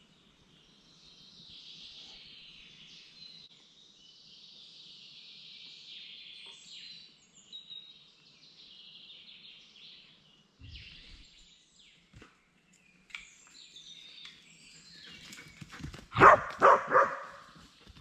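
Woodland birds chirping and singing faintly, then near the end a dog barks loudly three times in quick succession.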